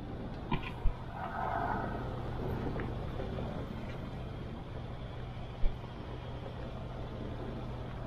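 Subaru Forester's flat-four engine running steadily as the car drives along a loose dirt track, with the rumble of tyres on the ground. Two short sharp thumps, one about a second in and one past the middle, as the car goes over bumps.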